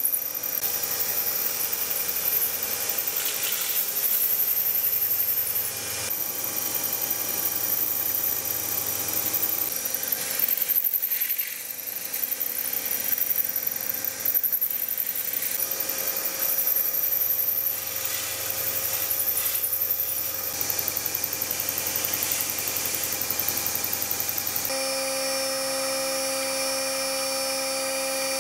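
Benchtop milling machine running, its end mill cutting a slot in a metal block: a steady motor and spindle whine under a cutting noise that rises and falls with the feed. Near the end the sound changes abruptly to a steadier whine with less cutting noise.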